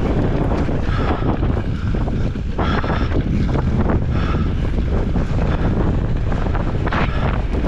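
Strong wind buffeting the microphone in a steady low rumble, with the rattles and knocks of a mountain bike riding over rough trail.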